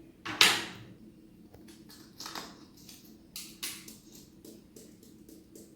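A spoon scooping and scraping against a container while baking powder is measured out: a sharp, loud scrape about half a second in, then several softer scrapes and taps.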